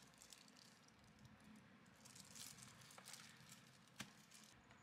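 Faint crinkling of cellophane wrap as a boxed instant camera is handled, with one sharp tap about four seconds in as it is set down on a desk.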